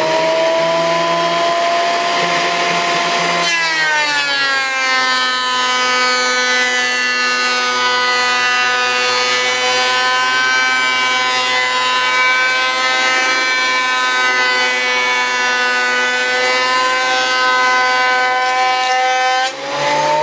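Delta benchtop thickness planer running loud and steady. Its pitch drops about three and a half seconds in as a board feeds through the cutterhead and loads the motor, then climbs back near the end as the board clears.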